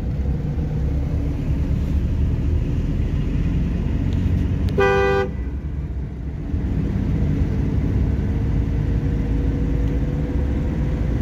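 A car's engine and road noise heard from inside the cabin, running steadily in third gear, with one short car-horn beep about five seconds in.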